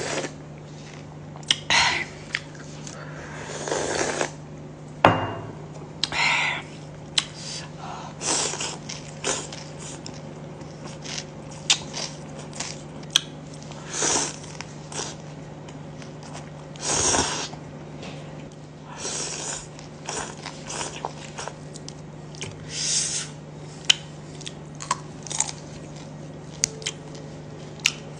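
A person eating Thai boat noodle soup: a string of short slurps of noodles and broth, with chewing and sharp mouth clicks between them. A steady low hum runs underneath.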